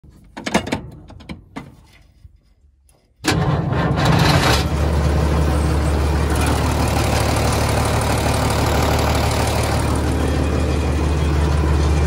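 A few knocks, then about three seconds in a road roller's diesel engine starts abruptly. A short rush of noise comes as it catches, then it settles into a steady low idle.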